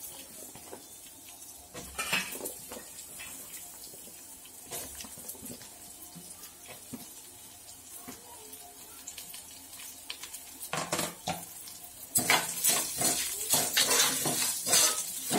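A spoon clinking and scraping against an aluminium pressure cooker as toor dal and brinjal pieces fry in oil, with a faint sizzle. About three-quarters of the way in, the clatter and sizzling become much louder and busier.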